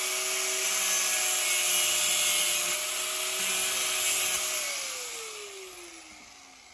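Electric angle grinder running at full speed while grinding down a metal part, a steady whine over a harsh hiss. About four and a half seconds in it is switched off and spins down, the whine falling in pitch as it fades.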